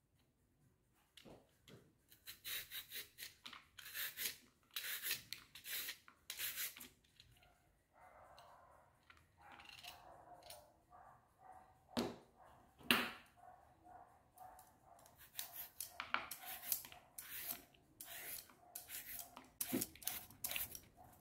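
Julienne peeler blades rasping along a fresh cucumber in repeated quick strokes, about two a second, in two runs. There is a quieter pause midway, broken by two sharp knocks.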